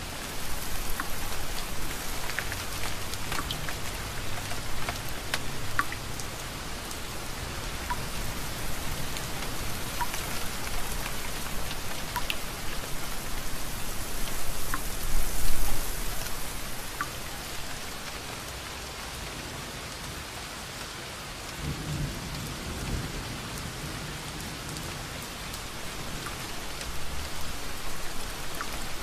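Steady rain falling, a dense hiss with individual drops tapping, and a low rumble of thunder partway through.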